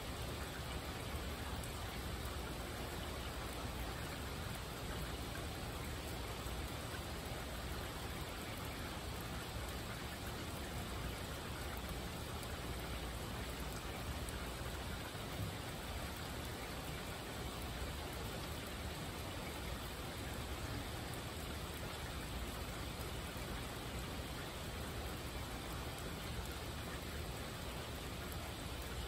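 Steady rain falling: an even hiss that holds at a constant level throughout.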